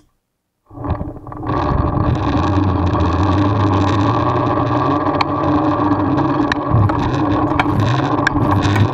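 Zipline pulley running along a rope line, carrying a wooden clay-target holder, heard from a camera riding on the carriage: a loud steady hum with a few sharp clicks, starting about a second in.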